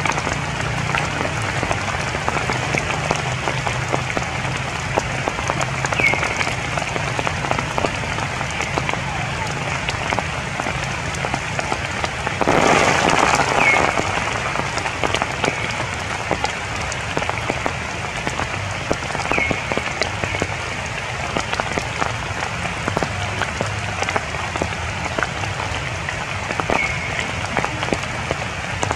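Rain falling on tree leaves: a steady patter with many fine drips, growing louder for a second or two near the middle.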